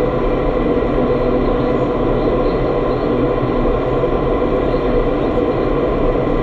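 Indoor skydiving wind tunnel's airflow rushing loudly and steadily through the flight chamber, with a steady hum in it.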